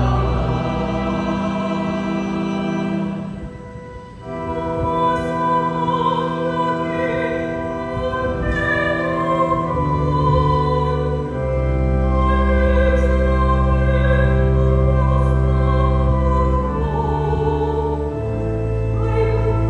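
A woman cantor singing a sacred song into a microphone over keyboard accompaniment of long held chords, with a short pause between phrases about four seconds in.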